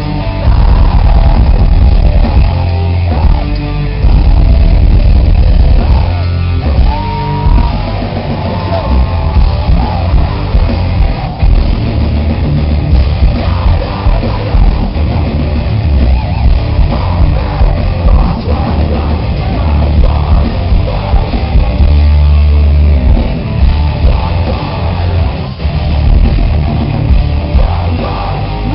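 Metalcore band playing live at full volume: distorted guitars, keyboards and a vocalist yelling over a heavy low end. Recorded from the crowd, loud enough to distort.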